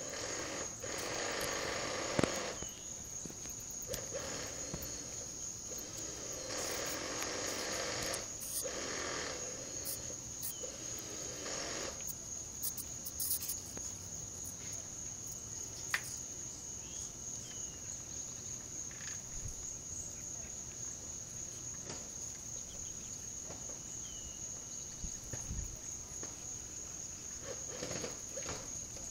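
Evening insects calling: a continuous high-pitched, finely pulsing trill. Stretches of rustling noise come and go in the first twelve seconds, with a couple of sharp clicks.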